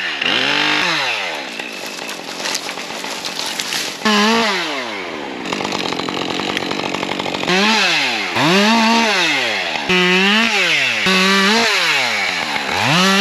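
Chainsaw cutting into small trees, revving up and dropping back again and again, with stretches of steady cutting through wood in between.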